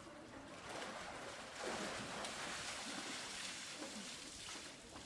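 Pool water splashing and sloshing as a polar bear wades to the steps and climbs out of the water, getting a little louder under two seconds in.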